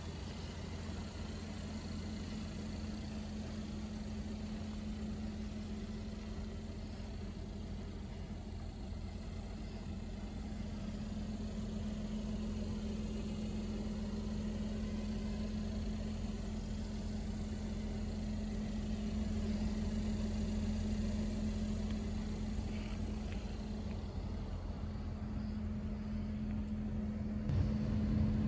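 Mercedes-Benz GLS 450's twin-turbo V6 idling with a steady hum, heard up close. Wind buffets the microphone near the end.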